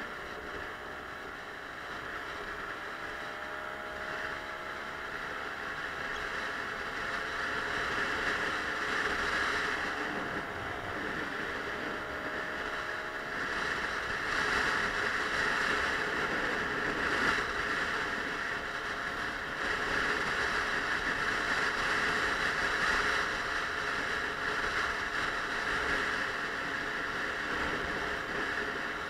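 Suzuki Let's 4 50cc scooter under way: a steady rush of wind and road noise over the engine's faint drone, whose pitch rises and falls in the first ten seconds or so. The rush grows gradually louder as the ride goes on.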